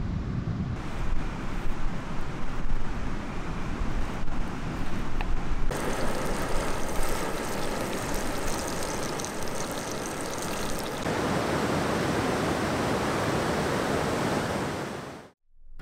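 Steady rush of flowing river water over rapids, changing in tone at about 1, 6 and 11 seconds in, then cutting off suddenly near the end.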